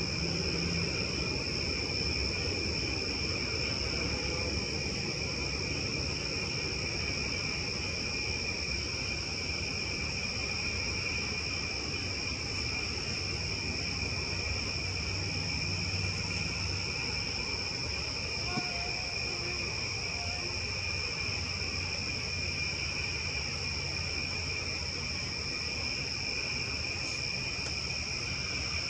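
Steady chorus of night insects, two unbroken high pitches, one above the other, with a low rumble beneath.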